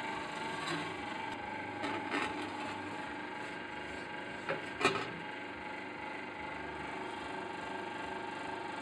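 Plasma welding machine running on a longitudinal seam welder: a steady hum with a high steady tone, broken by a few short sharp clicks, the loudest about five seconds in.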